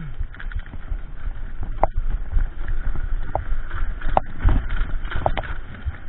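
Mountain bike rolling fast over a rough dirt trail: a continuous rumble and rattle from the tyres and frame over bumps, with a few sharp clicks and knocks.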